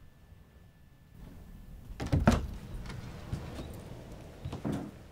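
A few sudden knocks and thumps over a low rumble; the loudest comes about two seconds in, with smaller ones later.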